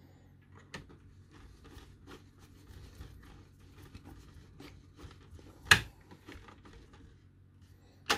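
A small screwdriver driving a screw to fasten a power supply circuit board into a metal chassis: a run of small irregular clicks and scrapes, with a sharp click about two-thirds of the way through and another near the end.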